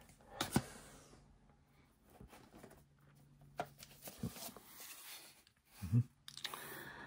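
Faint handling noise of Betamax tapes in cardboard sleeves being lifted out of a carton and turned over, with a few light taps and scuffs.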